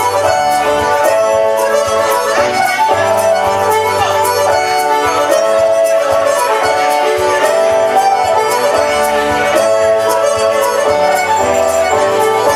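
Traditional Irish dance music: a lively instrumental tune on reed and fiddle-like instruments, with a steady beat.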